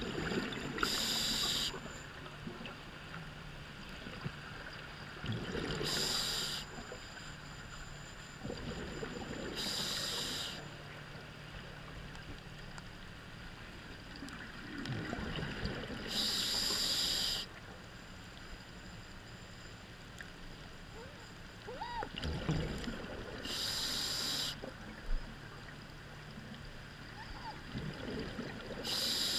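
A scuba diver breathing through a regulator underwater, six breaths at a slow, uneven pace. Each breath is a hiss of about a second with bubbling beside it.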